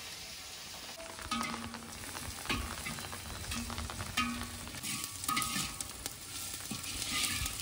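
Sliced onions sizzling as they fry in hot oil, stirred now and then, with short scraping strokes against the pan about once a second.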